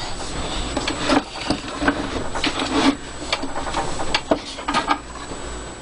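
A vintage wooden-cabinet radio being handled and shifted about: irregular knocks and clicks on wood, with rubbing and scraping in between.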